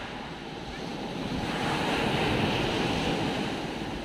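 Small sea waves breaking and washing up the beach at the water's edge, one wash swelling about a second in and fading away near the end.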